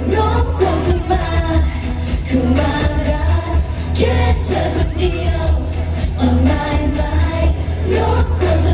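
Pop song performed live over stage speakers: group vocals sung over a backing track with a heavy, steady bass.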